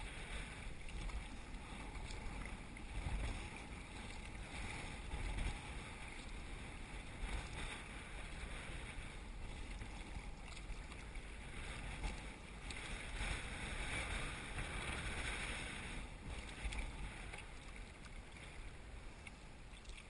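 Kayak paddling on choppy water: paddle strokes splashing and water lapping at the hull, with wind buffeting the microphone as a steady low rumble. The splashing hiss swells and eases a few times.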